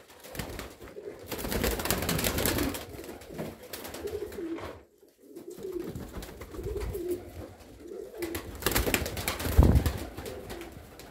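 Domestic pigeons of a Russian fighting (boynye) breed cooing over and over. Bouts of wing-flapping come in between, and there is a thump near the end.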